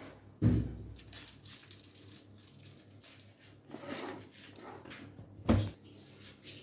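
Two dull thumps about five seconds apart, with soft rustling and handling noise between them, as a cake on a turntable is turned and a piping bag is worked.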